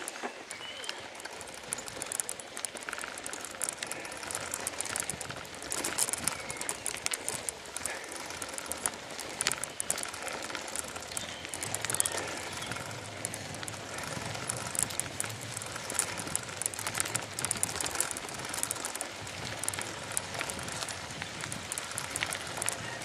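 Bicycle ridden over a rough grass-and-dirt towpath: steady tyre noise with frequent rattles and clicks, and a few faint bird chirps.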